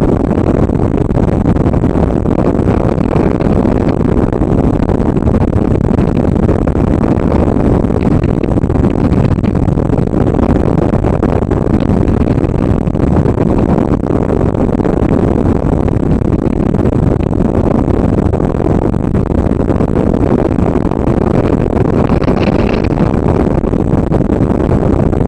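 Steady, loud wind rushing over the microphone of a camera mounted on a hang glider in flight, a low, even rumble.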